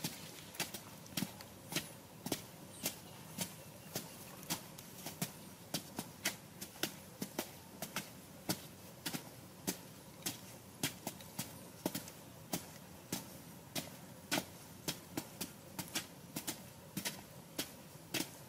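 Bamboo poles being jabbed into hard, dry soil by two diggers, making quick irregular knocks, a few a second.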